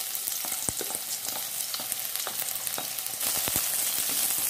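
Chopped garlic sizzling in hot oil in a wok, with scattered sharp crackles, as a spatula stirs it; the sizzle grows brighter and a little louder about three seconds in.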